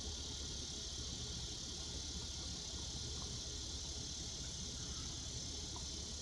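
Steady background noise: a low rumble under an even high hiss, with no distinct event.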